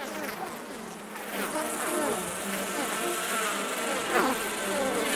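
A swarm of honeybees buzzing, growing louder over the first couple of seconds, with single bees passing close by in rising and falling glides of pitch.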